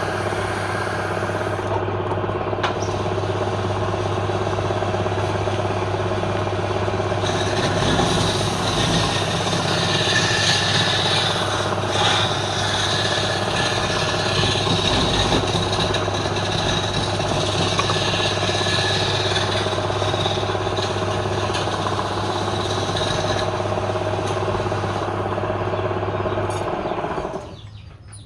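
Wood lathe running steadily with an electric motor hum. A brighter hiss joins about seven seconds in, and the sound stops abruptly near the end.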